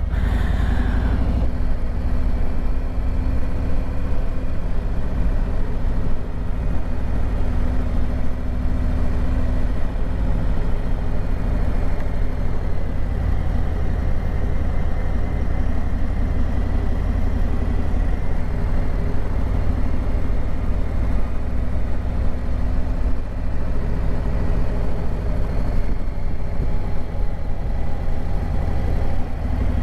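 Harley-Davidson Street Glide's V-twin engine running steadily at low road speed, heard from the rider's seat.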